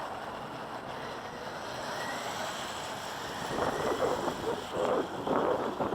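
Electric-converted OFNA LX1 1/8-scale RC buggy driving on dirt, with wind on the microphone. Louder rushes of noise come in the second half.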